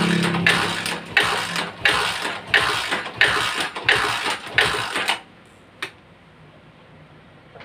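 Single-cylinder Honda motorcycle engine being cranked over with a compression gauge screwed into the spark plug hole, during a compression test. It chuffs rhythmically about one and a half times a second, stops about five seconds in, and a single sharp click follows shortly after.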